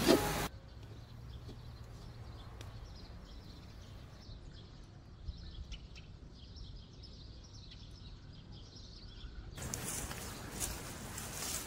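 Quiet outdoor ambience with small birds chirping faintly over a low hum. A loud, even hiss cuts off about half a second in and returns abruptly near the end.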